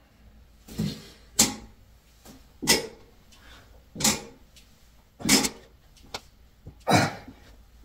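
Hex-bar deadlift repetitions: about six sharp exhales and clanks of the loaded bar and plates, one every second and a half or so.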